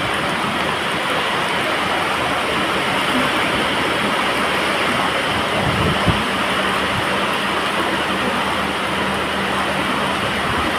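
Heavy monsoon rain pouring onto a flooded railway platform, a steady loud hiss with floodwater running over the concrete. A faint steady low hum sits underneath, and there is one dull thump about six seconds in.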